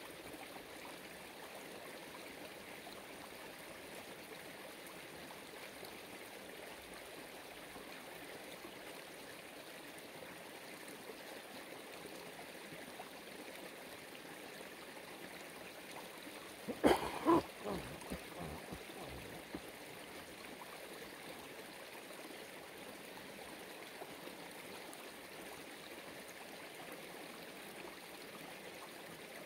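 Steady rush of running water, like a stream. A short clatter of sharp knocks breaks in about halfway through: two loud ones close together, then a few fainter ones over the next couple of seconds.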